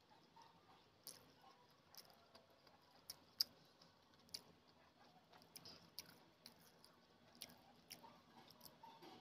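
Faint, irregular wet clicks and squishes of fingers kneading cooked rice with egg curry gravy and a boiled egg on a plate, eating by hand, with one sharper click about three and a half seconds in.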